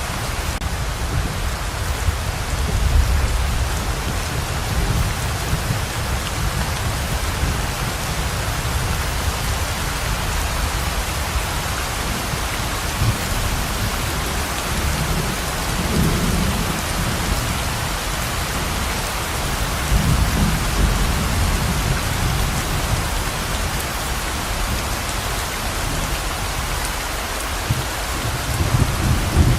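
Steady pouring rain hissing, with low rolls of thunder swelling up several times.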